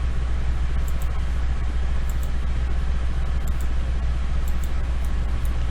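Steady low background hum, with a few faint short clicks from computer mouse clicks.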